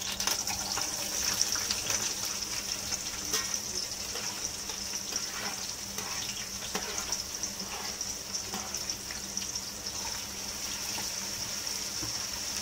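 Sliced onions sizzling in hot oil in a metal pot, the sizzle starting loud as they drop in and then holding steady, with scattered crackles.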